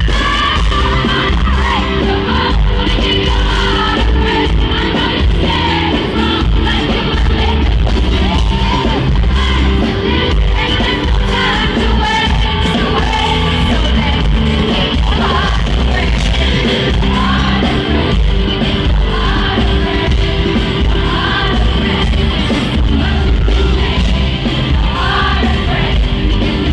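Live pop song played by a band, with a female lead singer on a microphone, heard loud through the amplified arena sound system.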